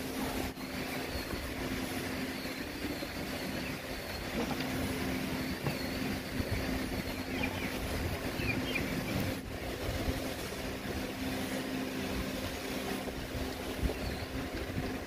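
A steady mechanical hum and low rumble with no speech, and a few faint light ticks of small metal parts, such as bolts and washers being handled, near the end.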